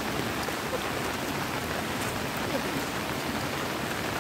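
Steady rain falling, an even hiss with faint scattered drop patter.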